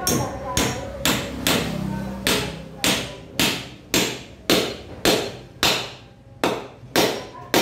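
Steel claw hammer driving a nail into a 2x2 softwood batten on a tiled floor, with sharp, even blows at about two a second and brief pauses near 2 and 6 seconds in.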